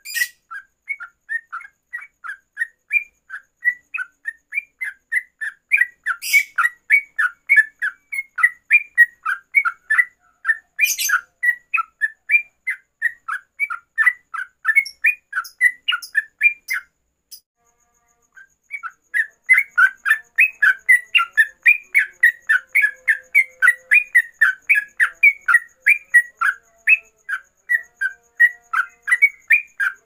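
Yellow-vented bulbul (trucukan) singing a fast, run-on series of short chirps, about three to four a second, in the rapid 'ropelan' style. The song breaks off for about a second and a half past the middle, then resumes. Three sharp clicks cut in during the first half.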